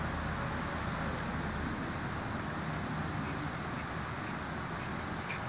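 Steady rushing noise of wind on the microphone, with no distinct whir or knock standing out.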